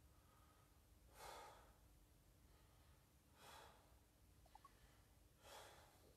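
Faint breaths of a person exercising with kettlebells, about one every two seconds.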